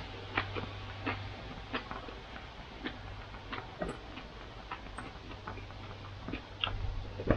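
Eating sounds: scattered small clicks and smacks of chewing, and of fingers mixing rice and soup on a plate, over a low steady hum.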